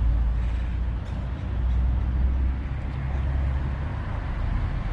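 Steady low rumble of road traffic crossing the highway bridges overhead.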